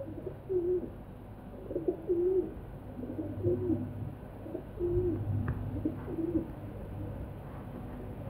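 Feral pigeon cooing: a low, rolling coo phrase repeated several times, about every second or so.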